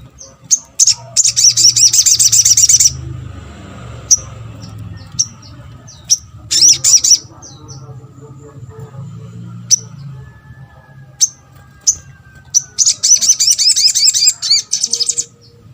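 Little spiderhunter (sogok ontong) calling: sharp, high single chips every second or so, broken by three fast chattering trills, the longest a little over two seconds near the end.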